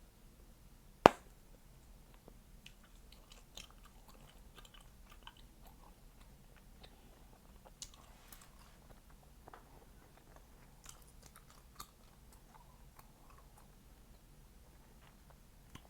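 Chewing gum close to the mouth, with a loud sharp gum pop about a second in, followed by a steady run of small wet smacks and clicks and a few smaller pops.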